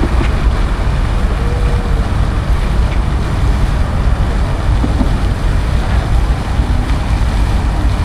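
Loud, steady low rumble with no distinct events.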